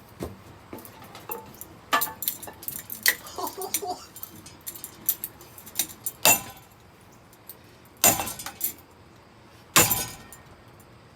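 Ceiling fan being smashed with a bat: a string of sharp hits and clattering, clinking debris, the loudest blows about six, eight and ten seconds in.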